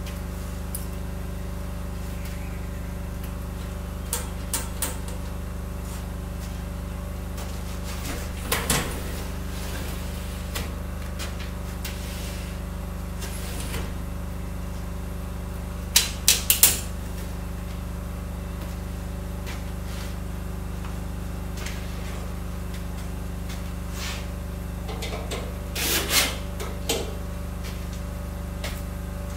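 Second-hand sliding window sashes being slid and latched, knocking against the frame in scattered sharp clacks, the loudest a quick run of four a little past halfway. The sashes' rollers are gummed up.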